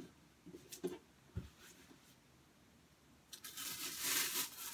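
Peel-and-stick wallpaper being handled and pressed onto the fireplace insert: a few light taps and a soft thump, then a papery rustling hiss lasting about a second and a half near the end.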